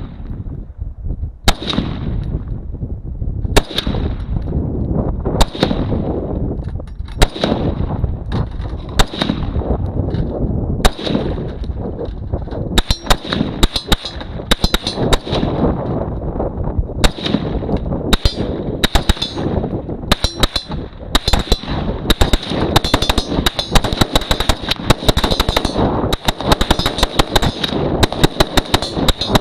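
Repeated gunshots: single shots a second or two apart at first, then from about halfway on a quick run of several shots a second.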